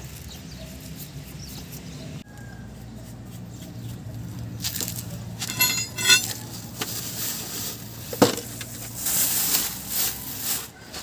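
Metal clinks, a quick run of ticks and rustling as a car's drive shaft and CV joint are handled, with a single sharp knock about eight seconds in, over a low steady hum.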